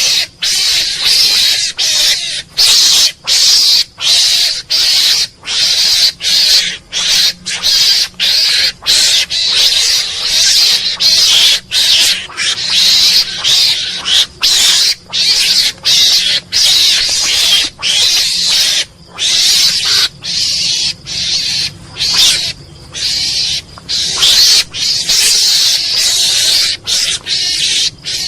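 Mongoose calling in a rapid, unbroken series of harsh, hiss-like calls, roughly two a second, with brief gaps between them.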